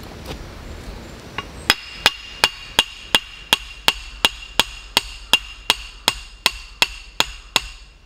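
A metal lantern pole being driven into the ground with hammer blows. A steady run of about seventeen ringing metallic strikes, roughly three a second, starts about a second and a half in and stops just before the end.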